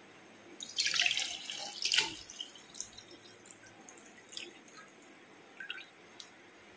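Milk poured from a steel pot into a steel tumbler, splashing loudest in the first couple of seconds while the tumbler is empty, then a fainter trickle as it fills.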